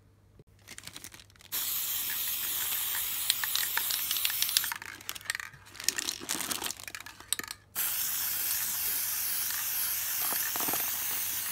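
Aerosol can of gold enamel spray paint hissing in two long sprays, the first starting about a second and a half in and lasting about three seconds, the second starting about halfway through. Between the sprays there are scattered clicks and rustling.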